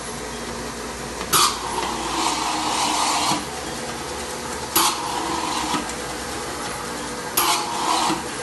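Three bursts of liquid nitrogen hissing from cryogenic valves into a stand mixer's steel bowl, each starting sharply; the first lasts about two seconds, the other two about a second each. Under the bursts the stand mixer runs steadily.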